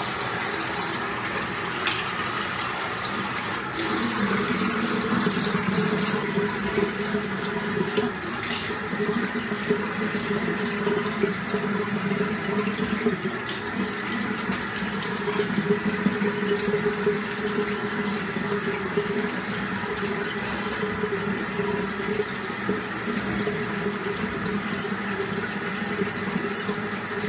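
Water running steadily from a bathroom tap into a sink during face washing, growing louder and fuller about four seconds in, with a few brief sharp sounds along the way.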